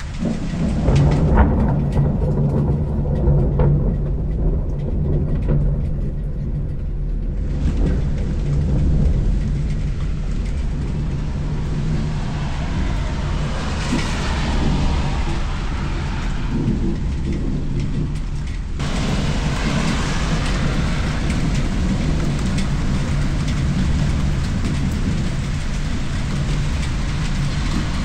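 Steady rain falling, with a low rumble underneath that is loudest in the first several seconds.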